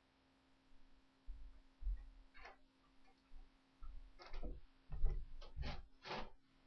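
Hiccups: a string of short, sharp hics, one about two and a half seconds in and then five or so close together in the second half, with low thuds alongside them.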